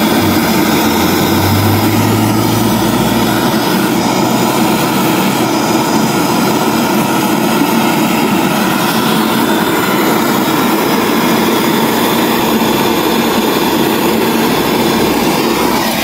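Gas torch flame running with a steady, loud rush, heating the brazed copper joint to free the suction (return) line from a refrigerator compressor.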